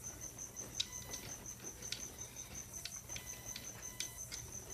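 Scattered small plastic clicks and taps from handling an Xbox 360 hard drive's plastic case, with its release button and spring being worked. A steady, rapidly pulsing high-pitched trill runs underneath.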